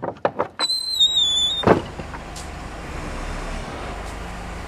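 Barn door being opened: a quick run of rattling knocks, a high squeal lasting about a second, then one loud bang about a second and a half in, followed by steady low background noise.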